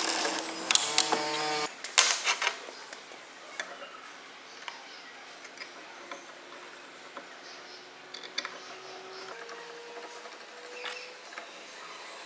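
Steel parts of a small homemade roller bender clinking and clicking as they are handled and a bolt is turned with a hex key: a quick run of sharp metal clicks and knocks in the first two seconds, then sparse light taps.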